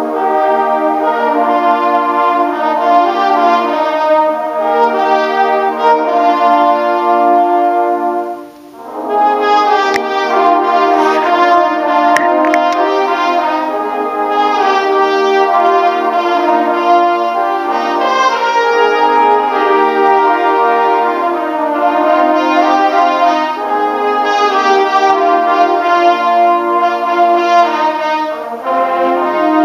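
Brass ensemble of mellophones and other brass playing held, full chords that change step by step; the sound breaks off briefly about eight seconds in, then the ensemble comes back in.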